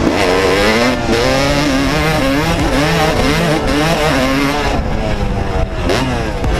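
Kawasaki KX250 two-stroke dirt bike engine under hard riding, its pitch climbing and dropping again and again as it is revved up and let off.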